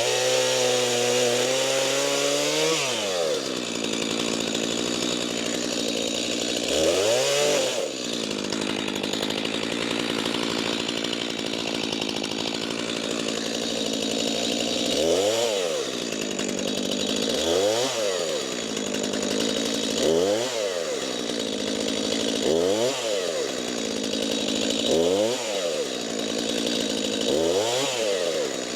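Stihl chainsaw running and cutting up cherry logs, the engine speed rising and falling as the chain bites. Over the second half the revs swing up and back about every two and a half seconds.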